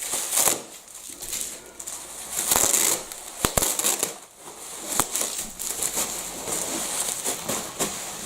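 Packing material being pulled off and unwrapped by hand: irregular rustling and crinkling, with a few sharp clicks.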